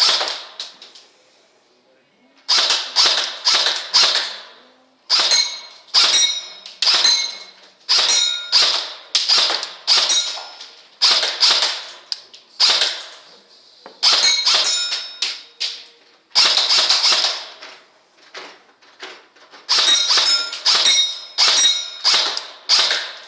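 Airsoft gun firing single shots in quick runs, roughly two a second with short pauses between runs; each shot has a sharp crack with a brief ringing tail.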